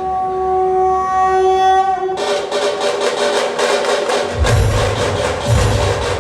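Dhol-tasha band playing. A held pitched note sounds first, then rapid tasha strokes break in suddenly about two seconds in. The deep, heavy dhol beats join a couple of seconds later.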